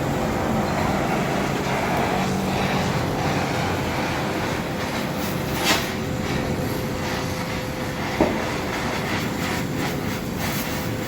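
Steady mechanical rumble of running machinery with a faint constant hum, broken by two short sharp knocks about halfway and three-quarters of the way through.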